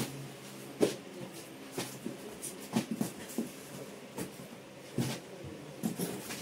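Small cardboard boxes of fishing hooks being taken out of a carton and handled: irregular sharp taps and knocks of cardboard with light rustling. The loudest knock comes about a second in.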